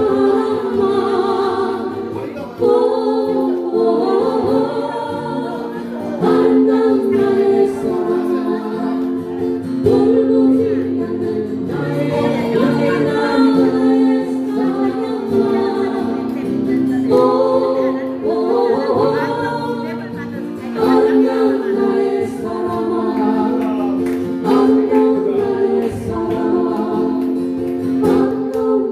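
Music with singing: a melody over steady held chords, with no words made out.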